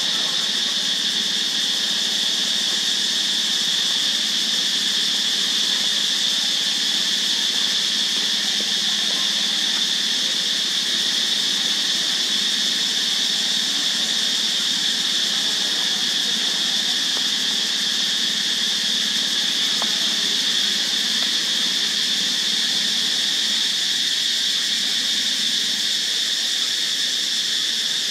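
Insect chorus droning steadily: one unbroken high-pitched buzz that holds the same pitch and loudness throughout.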